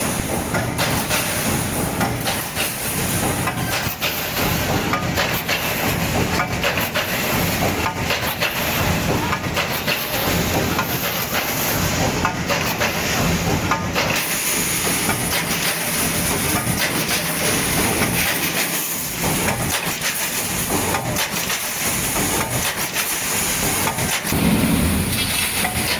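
Roll mesh welding machine running, with repeated clacking over a steady hiss.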